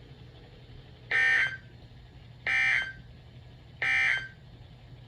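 EAS end-of-message data tones on NOAA Weather Radio: three short bursts of digital data tones, each about half a second long and spaced about a second and a half apart, signalling that the alert message is over.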